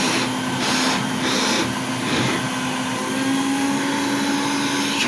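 Raketa 7M2 Soviet vacuum cleaner running, loud: a steady motor hum under a dense rush of air. The rushing air swells and dips several times in the first couple of seconds, then holds steady.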